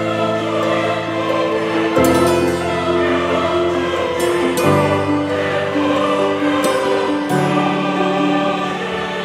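Background music of slow, held choral chords that change every two to three seconds.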